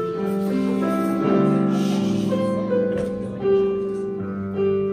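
Stage keyboard playing piano accompaniment: held chords under a slow melody line, changing note every half second or so.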